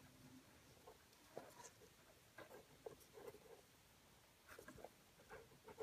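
Near silence, with faint rustling and light scattered ticks of nylon paracord being handled and pulled while braiding.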